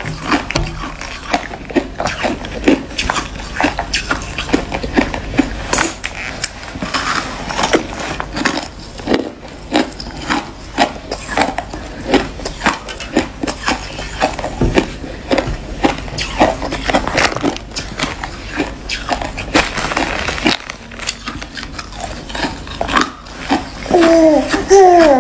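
Hard frozen ice being chewed and crunched between the teeth: a rapid, irregular run of sharp cracks and crunches. A voice comes in briefly near the end.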